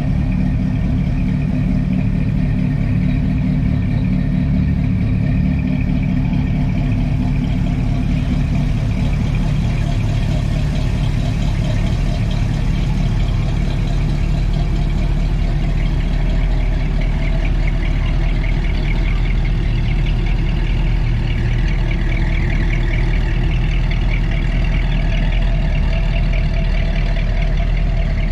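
Hot rod and street rod engines idling and running slowly, a steady, even sound without revving.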